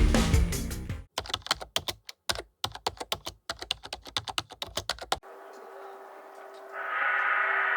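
Background music fades out, then a run of rapid, irregular clicks like typing on a keyboard for about four seconds. They stop suddenly, leaving a thin steady hum, and near the end a brighter tone swells in.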